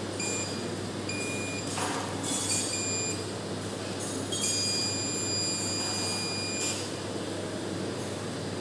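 Mastech digital multimeter's continuity buzzer beeping as its probes touch the heating element's terminals: several short broken beeps, then one held for about two seconds, with short scratchy noises between them. The beep, along with a resistance reading, shows the autoclave heating element's coil is intact, not open.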